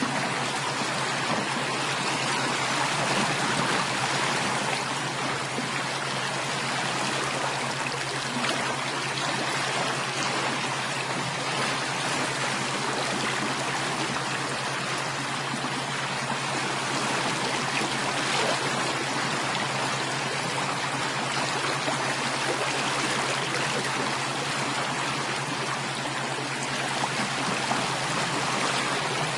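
Running water flowing steadily, like a stream, with an even rushing and trickling that does not change, and a faint low hum underneath.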